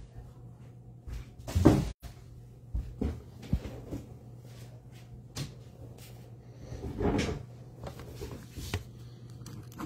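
Handling noises on a tabletop: scattered knocks, thumps and paper rustles as a notepad is picked up and held up, over a steady low hum. The loudest thump comes about a second and a half in, and another about seven seconds in.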